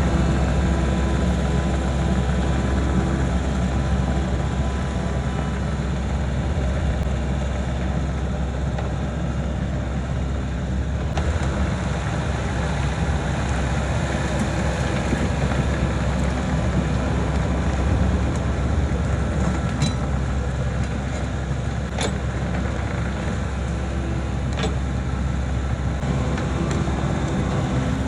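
Midsize excavator's diesel engine running steadily while it works, with a few short sharp clicks or knocks past the middle.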